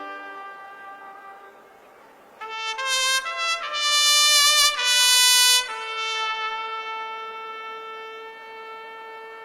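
Solo trumpet playing a slow phrase. A soft note fades away, then a run of loud high notes comes in about two and a half seconds in, settling into one long held note that slowly fades.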